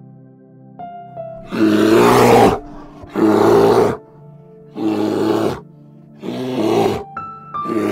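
An animal calling in five loud, rough calls of about a second each, spaced roughly a second and a half apart, over steady background music.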